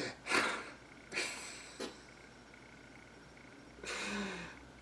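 A man's breathy exhales and stifled laughs: four short bursts of breath, the last about four seconds in with a little voice in it.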